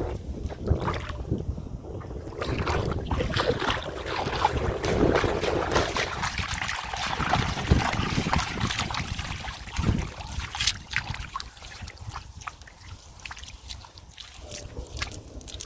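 Water sloshing and splashing with short clicks and knocks, denser in the first half and thinning out later, over wind buffeting the microphone.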